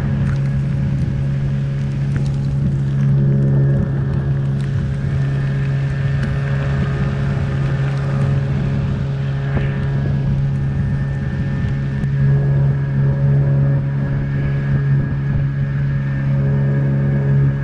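Small boat's outboard motor running at a steady speed as the boat travels across a lake, over a steady rush of wind and water.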